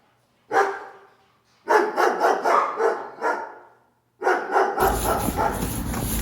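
A dog barking in quick runs of barks, with short silent gaps between them; near the end a steady rushing noise comes in.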